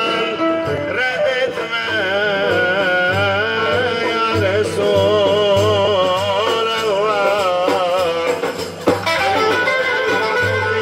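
A Turkish ilahi (devotional hymn) sung with a wavering, ornamented melody over the beat of frame drums, amplified through a PA. A sharp knock cuts in about nine seconds in.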